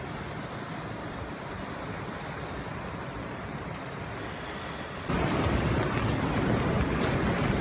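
Steady outdoor rushing ambience picked up by a phone microphone. It jumps abruptly louder about five seconds in, and a few faint clicks follow near the end.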